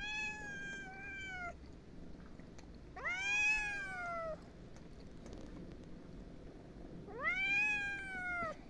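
Tabby-and-white kitten meowing three times, each meow long, rising then sliding down in pitch. The kittens are begging for more food after being fed.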